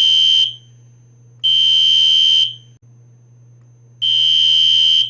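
Fire alarm horn on a 4-wire horn strobe sounding a Code 2 pattern: harsh, high-pitched one-second blasts in pairs, with a longer pause between the pairs. One blast ends just after the start, another sounds about a second and a half in, and the next pair begins about four seconds in.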